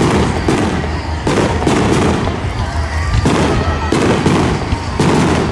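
Aerial firework shells bursting in a display: a rapid string of about ten bangs, roughly two a second.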